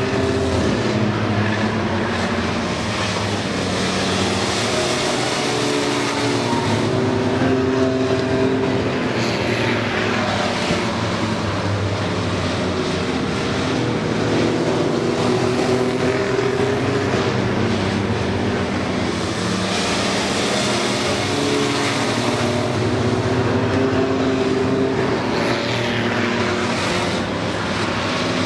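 Engines of compact pickup race trucks running hard around a short oval track, a continuous mixed engine drone whose pitch rises and falls as the trucks pass and go through the turns.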